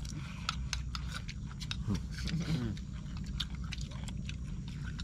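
Sounds of people eating: many short, irregular clicks and clinks over a steady low hum, with a brief faint voice about two seconds in.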